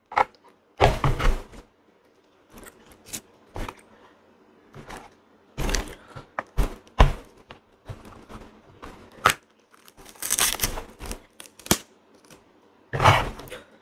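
Durian husk pieces being handled and flesh pods pulled from the rind, giving irregular rustling, tearing and scraping noises with the odd knock.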